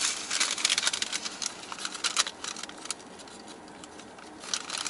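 Paper fast-food wrapper crinkling and rustling as food is unwrapped by hand: dense crackling for the first two and a half seconds, then only scattered crinkles.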